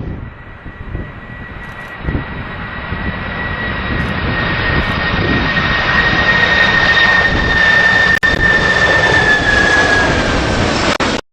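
Boeing 747-400 jet airliner's four engines on final approach, growing steadily louder as it nears, with a high steady whine over the rushing noise that dips slightly in pitch near the end as it passes.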